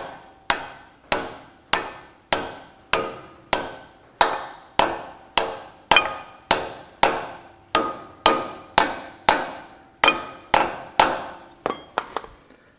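Ball-peen hammer tapping steadily on a steel driver, a little under two blows a second, each ringing briefly, driving a bearing onto a John Deere 4WD tractor's front hub spindle. The tapping stops about a second before the end, followed by a few light clicks.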